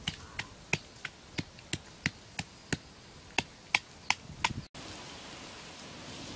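Sharp chopping knocks, about three a second, as something is chopped on the ground. About three-quarters of the way through, a sudden change to the steady sizzle of chicken gizzards frying on a hot rock slab over a wood fire.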